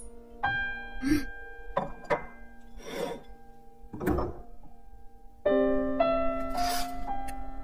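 Gentle film-score music: held notes, then from about five and a half seconds a melody climbing upward note by note. A few short soft knocks fall between the notes.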